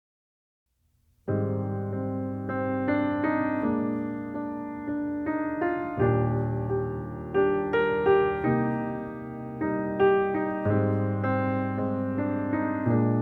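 Piano music: chords and melody notes, starting about a second in after near silence.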